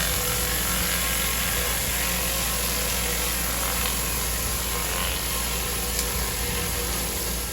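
Pressure washer running steadily, its engine hum under a constant hiss of high-pressure water spray.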